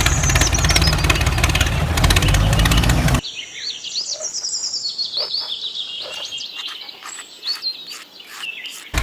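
A loud, steady, buzzing noise cuts off abruptly about three seconds in. After it, small birds chirp and twitter in quick, high calls.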